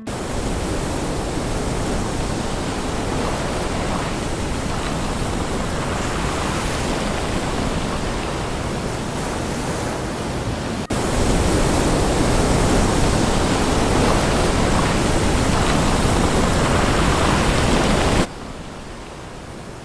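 Sea surf washing on the shore mixed with wind buffeting the microphone, a steady rushing noise. It gets louder about halfway through and drops quieter near the end.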